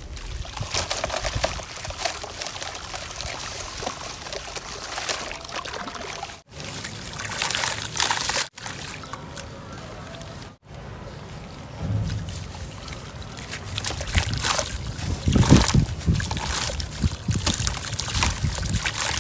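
Soaked sand-cement being crumbled by hand in a basin of water: water sloshing, trickling and splashing, with gritty crackling as chunks break apart. The sound breaks off abruptly three times, and the sloshing is heavier in the second half.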